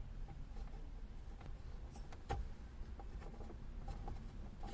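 Faint, scattered clicks of hand tools and parts being handled while working a bolt loose on a car's steering column, over a low steady background hum.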